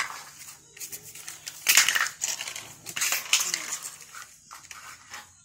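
Small plastic toys and building blocks clattering and scraping on a concrete floor as they are handled and pushed about, in a few irregular bursts, loudest about two and three seconds in.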